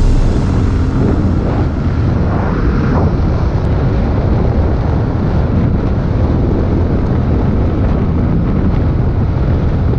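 Steady wind rumble on the microphone of an Aprilia SR 150 scooter riding at speed, with the scooter's engine and tyre noise underneath.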